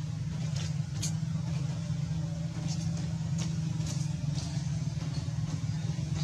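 Steady low rumble with a few faint clicks.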